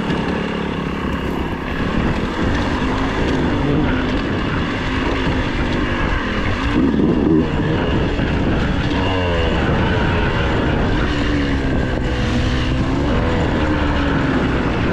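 Dirt bike engine running under way, its note rising and falling repeatedly with the throttle.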